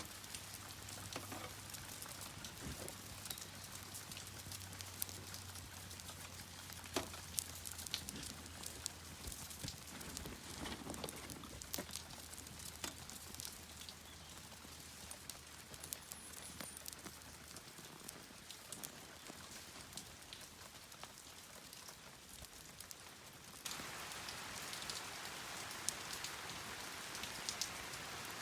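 Steady rain falling, with many scattered sharp drop ticks. It gets suddenly louder near the end.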